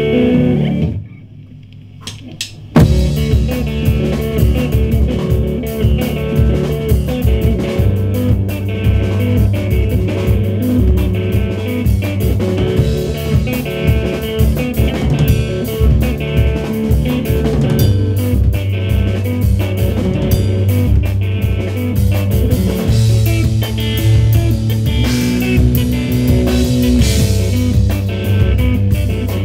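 Live instrumental math rock from a two-piece band: distorted electric guitar and drum kit playing loud, busy riffs. About a second in the music drops to a quiet stretch, then the band comes back in with a loud hit just under three seconds in and plays on.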